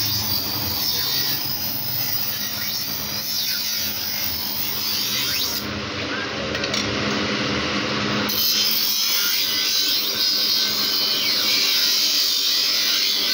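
Electric bench grinder running with a steady motor hum while a steel knife blade is ground against its spinning wheel, giving a continuous high grinding rasp: a knife being sharpened.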